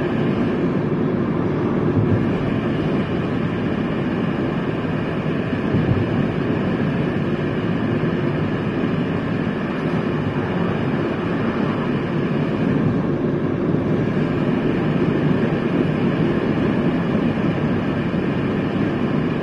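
Steady road and engine noise heard from inside the cabin of a car cruising along an open road.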